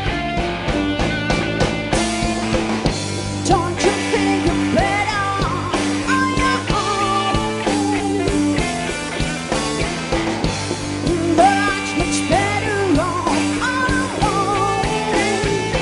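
Live blues band: a woman sings over electric guitar and drums, her voice coming in with sliding, wavering notes a few seconds in.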